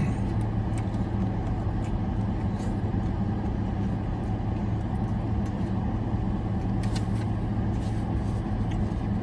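Steady low hum of a parked car idling, heard from inside the cabin, with a few faint clicks from eating and handling the sandwich.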